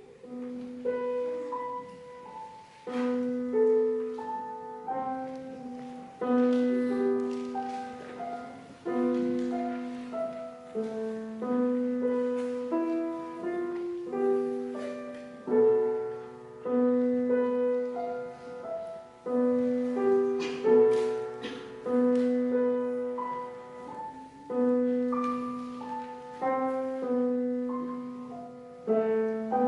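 A Yamaha grand piano played solo: struck notes that ring and fade, with a low note returning again and again under a moving melody. The playing begins about a second in.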